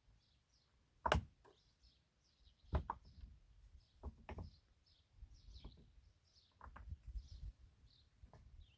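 Several sharp knocks at irregular intervals, the loudest about a second in, over a small bird chirping repeatedly in short high notes.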